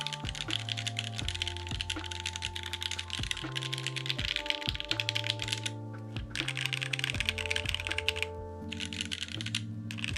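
Fast typing on a custom mechanical keyboard, a Vertex Angle R2 fitted with Gateron Oil King switches and case foam: a rapid run of key clacks with short pauses about six and eight and a half seconds in. The builder finds its sound tinny. Background music plays underneath.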